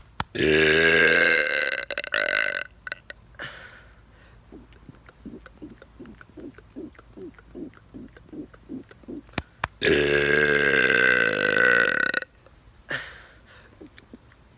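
Two long, loud deliberate burps by a man, each about two seconds, the second coming some seven seconds after the first.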